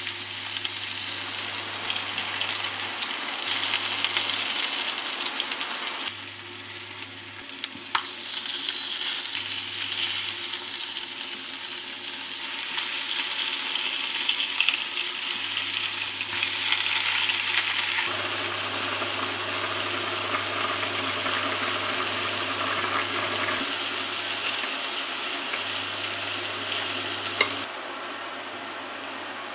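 Food sizzling as it fries in a hot pan, a dense crackling hiss that drops and rises abruptly several times, with a few sharp clicks.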